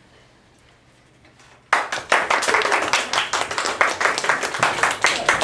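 Faint low hum in a quiet room, then, nearly two seconds in, an audience suddenly breaks into applause: many hands clapping at the end of a performance.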